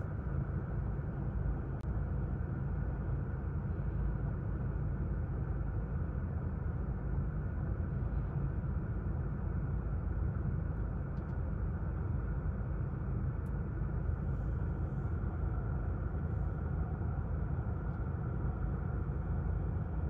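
Steady low rumble of a car heard from inside the cabin, even and unchanging throughout.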